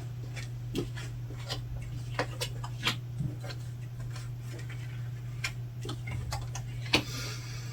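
Irregular light clicks and taps of tarot cards being handled and laid down, over a steady low hum.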